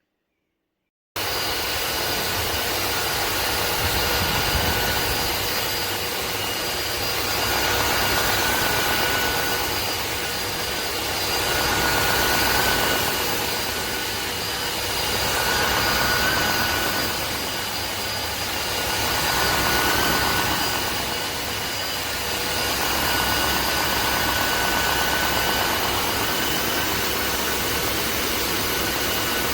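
Tineco iFloor 5 Steam wet-dry floor vacuum running: a steady motor whine with several fixed high tones over a rushing hiss. It starts abruptly about a second in and swells and eases in loudness about every four seconds.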